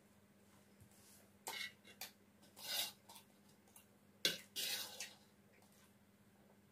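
Close-up wet chewing and mouth sounds from a mouthful of fried rice. A little past halfway, a metal spoon clicks sharply on a stainless-steel plate and scrapes as it scoops up more rice.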